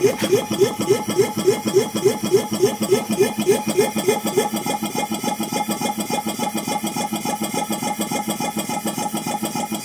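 DWM Copeland refrigeration compressor running on a variable-frequency drive, with a rhythmic pumping pulse of about three to four strokes a second that turns faster and more even about four and a half seconds in. It is running open and free-revving without back pressure, the state in which it throws oil up past the pistons.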